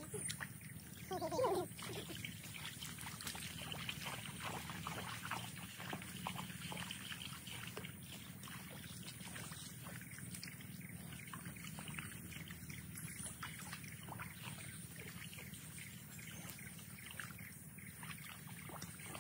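Faint trickling and small scattered splashes of muddy water as rice seedlings are pushed by hand into a flooded paddy.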